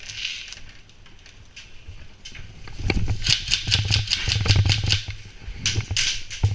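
Airsoft electric rifle firing full-auto bursts, a rapid even rattle of shots over a low motor hum: one burst of about two seconds starting about three seconds in, and a shorter burst near the end.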